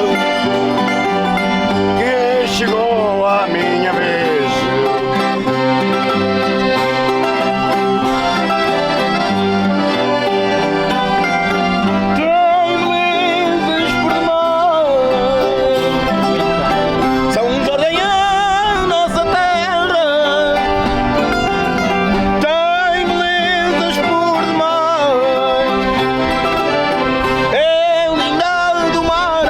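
Folk music played on string instruments and an accordion, with voices singing in phrases over the steady accompaniment.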